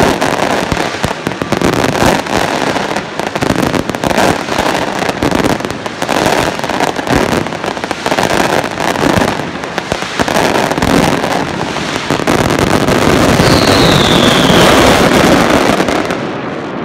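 Aerial fireworks going off in a dense, continuous barrage of rapid bangs and crackling bursts. A short falling whistle sounds about three-quarters through, and the volley thins out right at the end.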